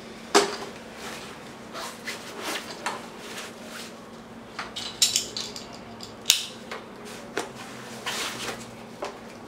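Evenflo 3-in-1 plastic high chair knocking and clicking as a baby is lowered into its seat and settled against the harness, with the sharpest knock just under half a second in and a few more clicks around five to six seconds in. A faint steady hum lies underneath.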